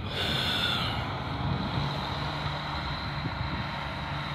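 Off-road 4x4 engine running steadily, with a short hiss near the start.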